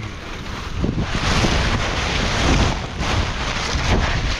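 Wind buffeting the microphone: an uneven rushing rumble.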